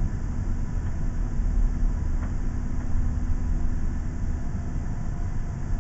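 A 43-foot tag-axle motorhome rolling slowly, its engine and road noise making a steady low rumble, with a faint steady hum through most of it.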